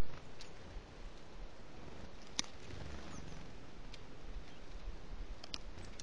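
A northern goshawk plucking and tearing at a carcass: a few faint sharp ticks and rustles over a steady low background hiss. A loud click fades away at the very start.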